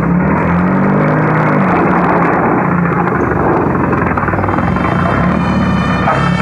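Loud, steady recorded vehicle-engine sound effect, with a high steady tone coming in about four and a half seconds in.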